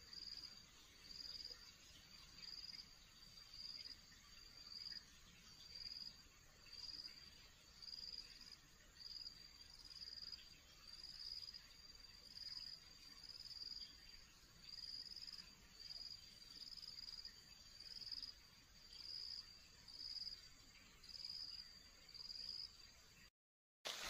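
A cricket-like insect trilling on one high, thin pitch, swelling and fading in a steady regular pulse a little faster than once a second, faint over quiet forest ambience; it cuts off shortly before the end.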